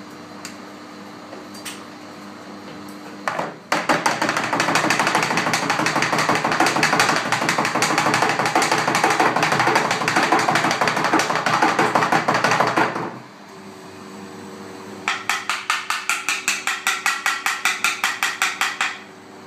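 A plastic praline mould coated with milk chocolate is rapped rapidly and continuously against a stainless-steel worktop for about nine seconds. After a short pause it is held upside down and tapped steadily, about five knocks a second. The knocking shakes off excess chocolate so the shell stays thin at the edge.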